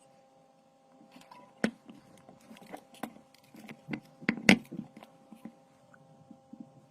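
Irregular clicks and taps of small objects being handled on a work surface, with a faint steady hum underneath; the loudest knocks come about a second and a half in and again about four and a half seconds in.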